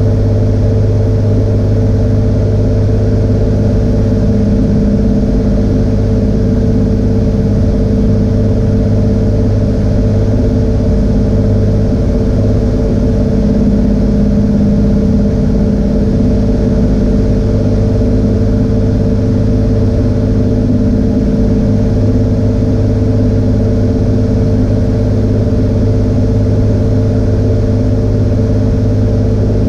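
Cirrus SR22's piston engine and propeller running steadily, an even drone heard inside the cockpit.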